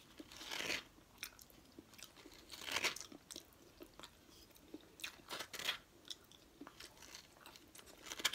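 Close-up chewing of a nori-wrapped sushi roll with avocado: soft wet mouth sounds and small clicks, with three louder noisy bites or chews spaced two to three seconds apart.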